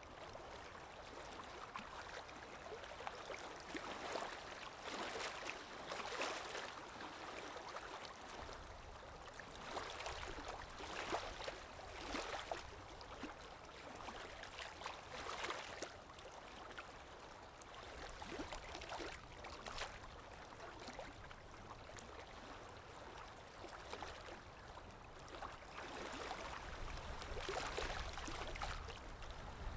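Water sound effect: a stream gurgling and splashing steadily, swelling and easing every second or two.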